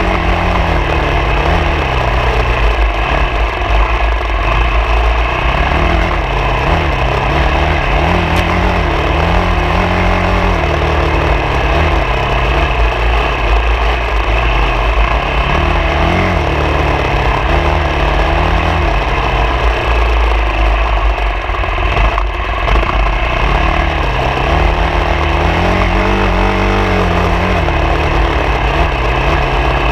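Motorcycle engine running while riding off-road, its pitch rising and falling with the throttle, over a steady noise of wind and terrain.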